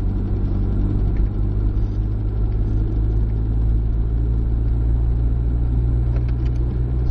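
Car engine and road noise heard inside a moving car's cabin: a steady low rumble with a constant engine hum.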